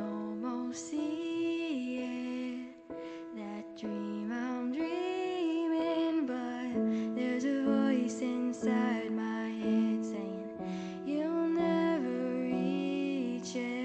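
Young female voices singing a song over held keyboard chords.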